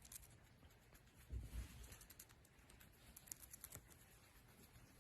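Near silence with faint scattered clicks and a soft low thump about a second and a half in.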